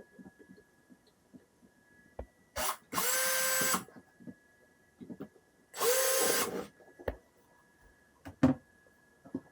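Electric drill running in two short bursts of about a second each, its motor whine rising as it spins up. A single sharp knock comes near the end.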